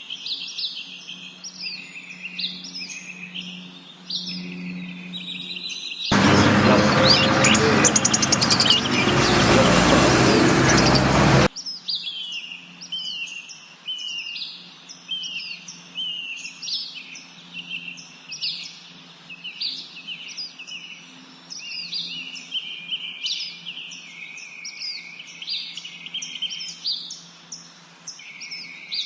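Small birds chirping in quick, repeated sharp notes over a faint low hum. About six seconds in, a much louder, harsh full-range noise cuts in for roughly five seconds and stops abruptly, after which the chirping continues.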